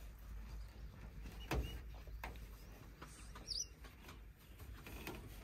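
Faint knocks and rustling as a cloth is knotted around a metal roof bar, with a single short bird chirp about three and a half seconds in.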